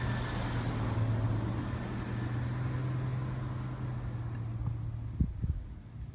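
An engine running with a steady low hum, fading out about five seconds in, followed by a couple of low knocks.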